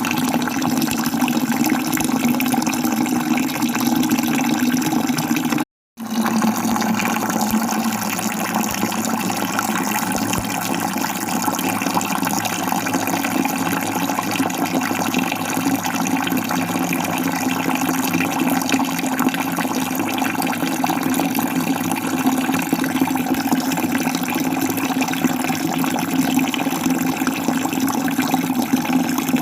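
Steady rush of falling water, with a brief cut to silence just before six seconds in.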